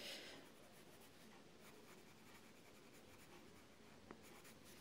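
Faint scratching of a Prismacolor coloured pencil shading on paper in short strokes.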